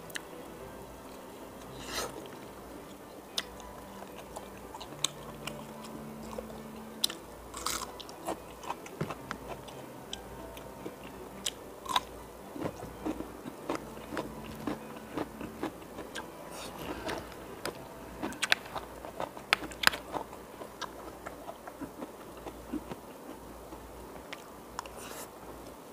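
Close-up mouth sounds of eating: chewing, with a run of sharp, crisp crunches through the middle from biting into raw cucumber.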